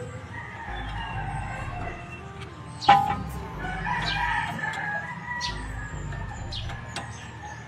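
A rooster crowing, with a single sharp knock about three seconds in.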